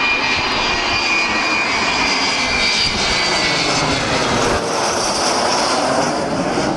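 Avro Vulcan bomber's four Rolls-Royce Olympus turbojets passing low overhead: a loud, steady jet roar with high whining tones over it that slide slightly lower and fade about halfway through.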